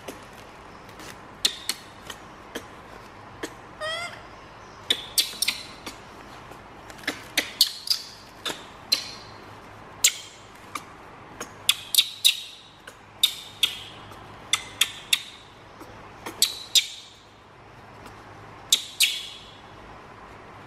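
Baby monkey giving a long, irregular run of short, sharp, high-pitched squeaks, with one rising chirp about four seconds in.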